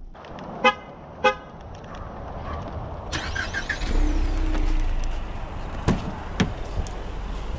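Two short car-horn chirps about half a second apart, as from a key-fob lock or unlock. Then a brief jingle of keys, low wind rumble on the microphone, and two sharp clicks near the end as the car door handle is worked.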